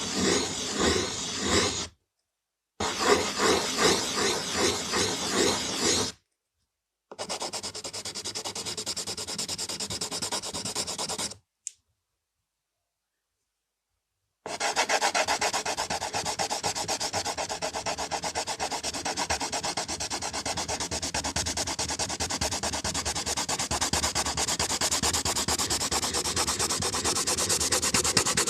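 Graphite pencil scratching across paper in runs of quick strokes, cut by short gaps of dead silence, then a long unbroken stretch of fast, even scribbling from about halfway in.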